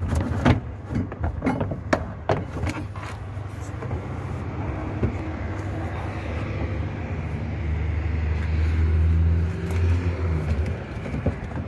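A few sharp clicks and knocks from hands working the plastic trim and panels of a car's rear hatch, over the steady low hum of a running vehicle engine that swells louder from about seven and a half to ten seconds in, then eases.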